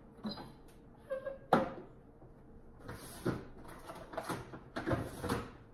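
Refrigerator door knocking open, loudest about one and a half seconds in, then a few seconds of rustling and clatter as food packages are taken out.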